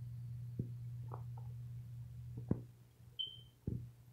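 A steady low hum that cuts off with a sharp click about two and a half seconds in, with a few soft clicks and knocks around it and a brief high beep just after three seconds.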